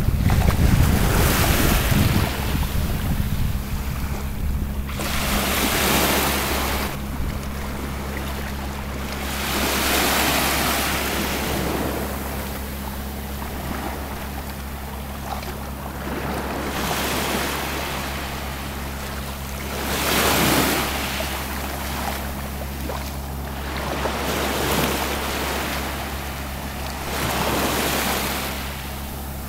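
Small Mediterranean waves breaking and washing up the beach, each swell rising and falling away about every four seconds, over a steady low rumble of wind on the microphone.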